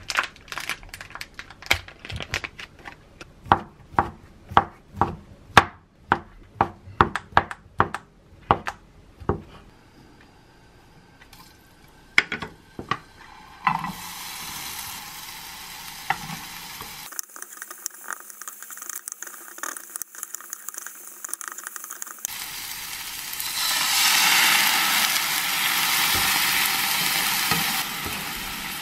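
A knife chopping on a wooden cutting board, a few quick strokes a second, for the first several seconds. Then minced garlic and sliced onion sizzle in oil in a nonstick frying pan, and the sizzling grows louder near the end as a creamy sauce cooks and is stirred with a spatula.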